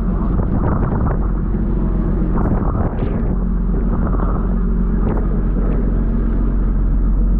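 Pole-and-line tuna fishing boat's engine running with a steady low hum, under the rush of water churned up along the hull.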